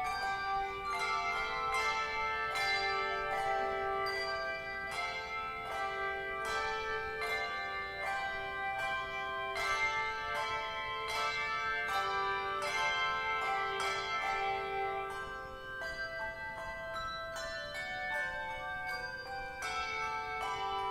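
Handbell choir ringing a piece: chords of brass handbells struck together in a steady rhythm, their pitched tones ringing on and overlapping.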